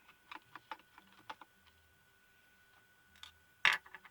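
Scattered light clicks and taps of a small plastic projector casing being worked with hand tools, a quick run of clicks in the first second and a single louder click near the end.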